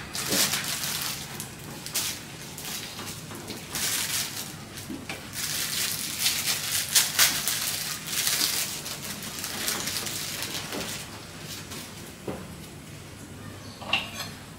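Kitchen handling noises: repeated bursts of rustling and scraping with a few sharp knocks, easing off about ten seconds in, then one more sharp sound near the end.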